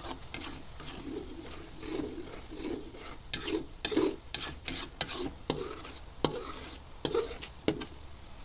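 A metal spatula scraping and stirring thickening coconut milk around a metal wok, in irregular strokes about one or two a second with occasional sharp knocks against the pan, over a low simmering sizzle. The coconut milk is being cooked down to render coconut oil and is just starting to thicken.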